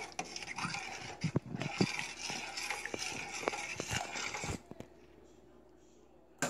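A spoon stirring thick chili in a stainless steel pot: the sauce swishes and the spoon knocks and scrapes against the pot, stopping about four and a half seconds in.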